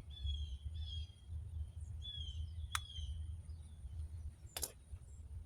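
A bird chirping in short falling notes, with two sharp clicks, over a steady low hum.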